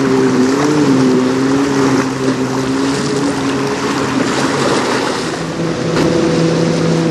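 A sailboat's engine running steadily as the boat motors with its sails furled, a low hum whose pitch wavers slightly, over wind on the microphone and choppy river water.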